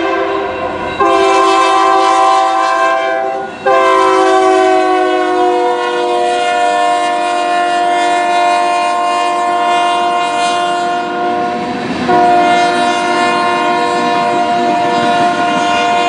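Union Pacific diesel locomotive's air horn blowing long blasts for a grade crossing. The blasts break briefly about a second in, again after three and a half seconds, and near twelve seconds. The horn's pitch slides down as the locomotive passes.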